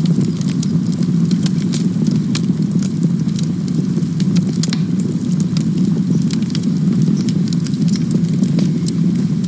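Campfire burning steadily with a constant low rumble and frequent sharp crackles and pops from the burning wood.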